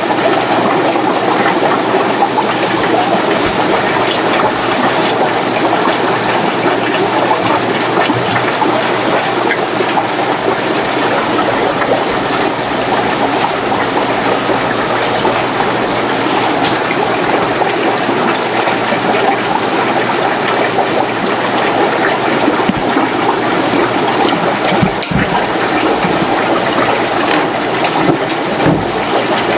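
Steady rushing, gushing water noise from running aquarium filters and air pumps, with two brief knocks near the end.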